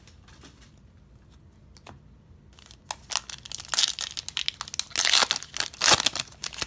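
Plastic wrapper of a Donruss Optic football card pack crinkling and tearing as it is ripped open by hand, starting about three seconds in after a few faint clicks, loudest near the end.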